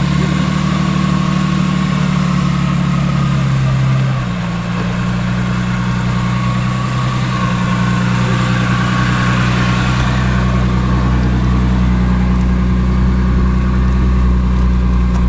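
Jeep engine running steadily at low trail speed, its note shifting once about four seconds in.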